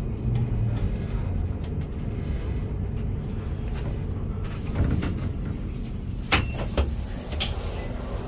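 Low steady hum of a tram standing at a stop, heard inside the vehicle, with a few sharp clicks and knocks about six to seven and a half seconds in.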